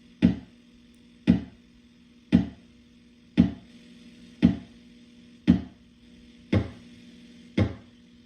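Homemade analog kick drum circuit (a TL074 op amp with a bridged-T network in its feedback loop) playing through a speaker: eight short decaying thumps, about one a second. The pitch shifts as its knob is turned, deeper in the last few hits.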